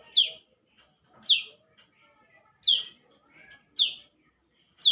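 Young prenjak lumut calling: five sharp, short chirps, each a quick downward sweep, repeated about once a second, with faint twittering between them.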